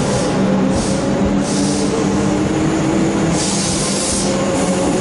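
Melbourne Metro electric suburban train moving along the platform: a steady electric hum with a faint tone that rises gently, and several short bursts of hiss, the longest about three and a half seconds in.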